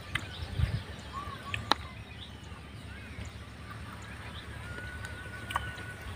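Faint bird calls: a couple of short chirps about a second in and a thin held whistle near the end, over a steady low rumble, with a few sharp clicks.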